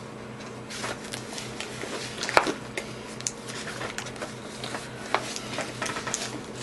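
Handling noise at a desk as a book and papers are moved about: a string of paper rustles and light clicks and knocks, the sharpest about two and a half seconds in, over a steady low electrical hum.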